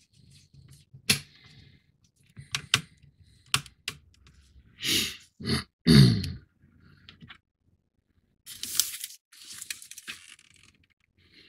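Scattered clicks and taps of plastic model parts being handled and small screws driven in by hand. A short low grunt, falling in pitch, about six seconds in, and a rustling scrape near the end.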